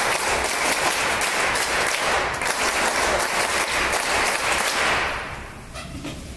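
Audience applauding, a dense spell of clapping that dies away about five seconds in.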